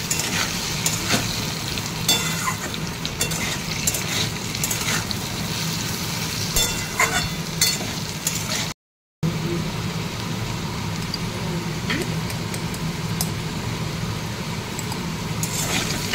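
Potato cubes frying in oil in a metal wok: a steady sizzle, with a metal spatula scraping and clicking against the pan every so often. The sound cuts out briefly about nine seconds in.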